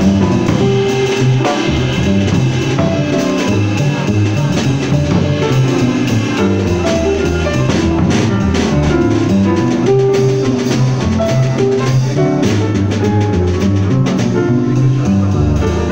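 Small jazz group playing live: plucked upright double bass notes move busily in the low range, with drum kit and cymbals alongside.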